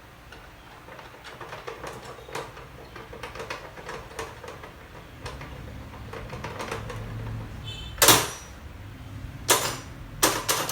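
Electric paper drilling machine for documents being handled and run: a string of small clicks and taps, then a low motor hum coming in about seven seconds in. Four loud, short rasping bursts follow near the end.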